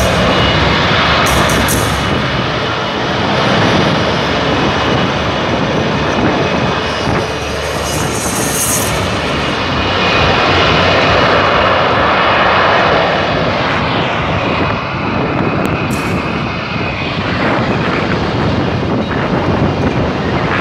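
A short-takeoff, vertical-landing jet fighter hovering, its engine a loud, steady roar with a high whine through it.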